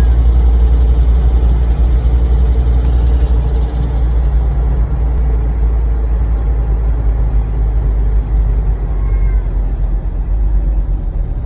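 Steady low rumble of a car driving, heard inside the cabin: engine and road noise.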